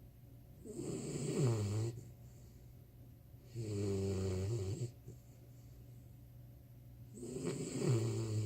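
Sleeping four-month-old puppy snoring: three snores about three seconds apart, the first and last sliding down in pitch, the middle one held steady.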